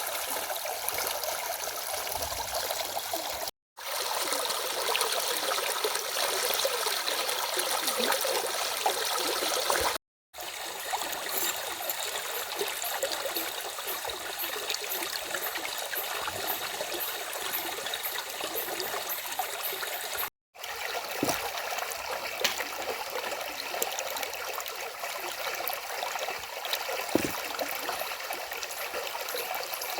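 Small stream running, a steady rush and trickle of water. The sound cuts out to silence briefly three times, at about 4, 10 and 20 seconds in.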